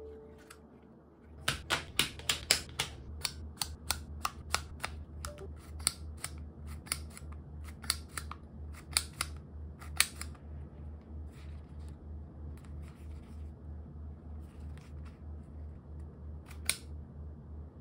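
Aluminium card-ejector case in a slim leather wallet being worked by hand: a quick run of sharp metallic clicks and snaps as the ejector fans the cards out and they are pushed back in. The clicks thin out after about ten seconds, with one more sharp click near the end.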